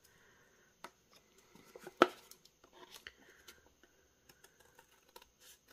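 Scissors trimming the edge of a paper envelope: a few faint snips and paper rustles, with one sharper click about two seconds in.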